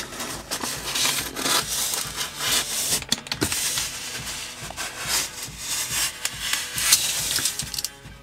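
Utility knife cutting along packing tape on the seam of a polystyrene foam box, with blade and hands scraping and rubbing on the foam; an irregular scratchy noise that eases off near the end.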